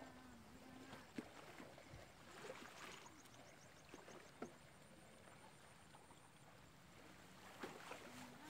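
Near silence: faint outdoor ambience with a few soft scattered clicks and, about three seconds in, a brief run of fast high ticking.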